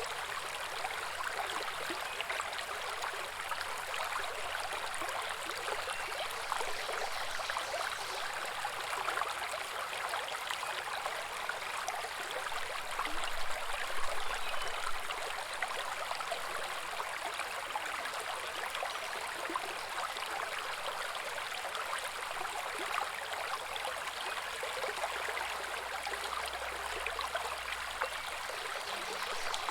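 A small woodland brook babbling over stones, a steady splashing and gurgling flow, a little louder about halfway through.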